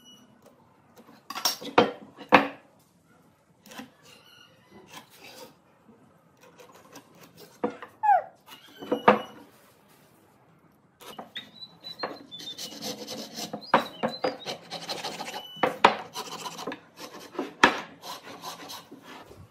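Wooden beams knocked and shifted on a wooden workbench, with sharp knocks early on, then a pencil and marking tools scratching and rubbing along the timber as lines are marked out, a dense scraping run broken by clicks from about eleven seconds in.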